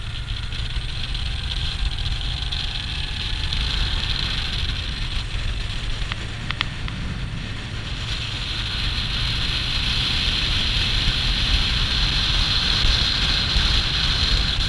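Moto Guzzi motorcycle engine running steadily at road speed, its low rumble under rushing wind and road noise on the helmet-mounted microphone. The wind grows louder about halfway through as the bike picks up speed, with a couple of short clicks just before.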